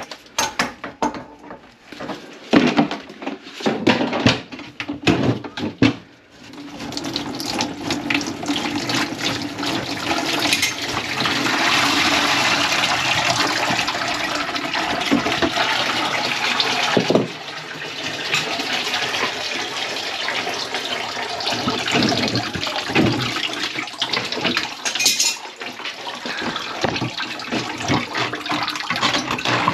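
Clanks and clicks as the kitchen sink drain fittings are handled, then water rushing out of the opened drain line into a catch pan, loudest in the middle and going on more weakly to the end. The line is clogged with grease.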